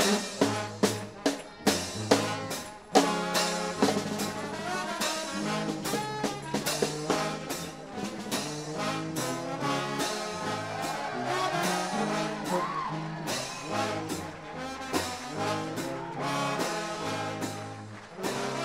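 Gospel trombone shout band playing: massed trombones in chords over a bass line and drum kit. Hard accents fall on the beat for the first few seconds, then the horns play on more evenly.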